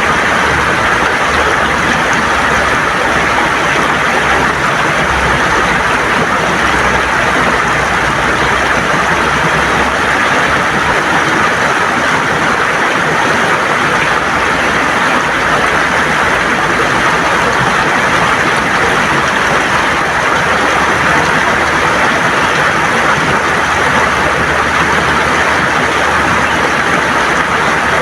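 River water gurgling and rushing over stones, a steady loud flow.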